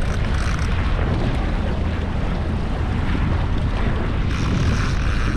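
Wind rumbling on the microphone over water washing around a boat's stern, steady throughout.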